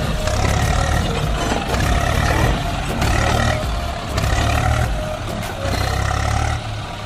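Tractor diesel engines running hard under heavy load, revved in uneven surges about once a second, as a tractor stuck in mud strains to pull free.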